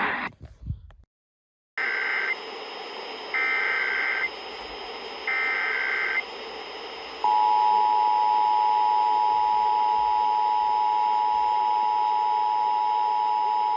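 Emergency Alert System SAME header: three short bursts of warbling data tones, followed about seven seconds in by the EAS two-tone attention signal, loud and steady, over radio hiss. Together they open an EAS required monthly test.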